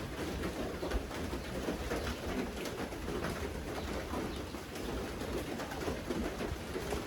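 Steady rain falling, with many separate drops striking a surface.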